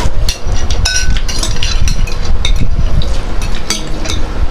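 Close-miked eating sounds: chewing and mouth noises with many small sharp clicks and a steady low rumble.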